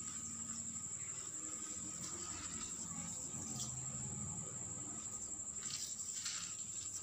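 A cricket trilling steadily at a high pitch, with a faint low hum and a few soft rustles of granules being poured into a basin of water.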